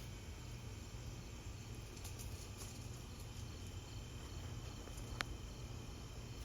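Night insects, crickets, chirping faintly and steadily over a low steady hum, with one sharp click about five seconds in.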